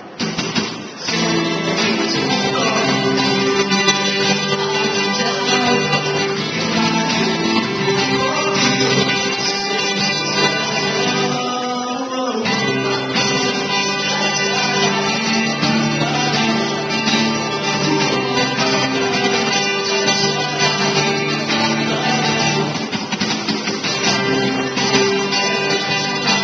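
Live acoustic guitar music, chords ringing on steadily, with a short break in the low notes about halfway through.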